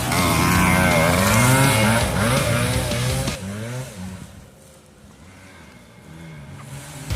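Kawasaki KE100 two-stroke single-cylinder dirt bike revving hard, its pitch climbing and dropping with each shift, then fading away about four seconds in before building again near the end.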